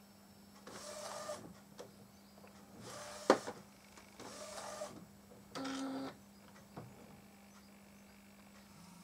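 Epson Stylus Photo R1900 inkjet printer, converted for direct-to-garment printing, running: four short motor whirs in the first six seconds, with a sharp click about three seconds in, over a steady low hum.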